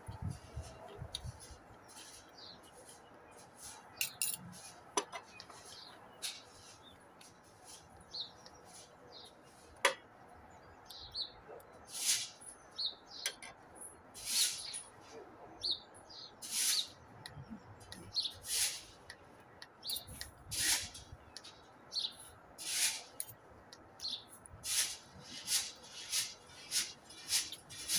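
Close-up eating sounds: wet chewing and lip smacks that come about once a second in the second half, with a few sharp clinks of a metal fork and spoon against china plates.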